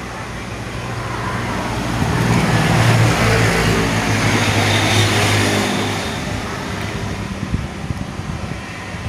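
A motor vehicle passes by. Its engine hum and road noise build over about two seconds, hold, and fade away after about six seconds.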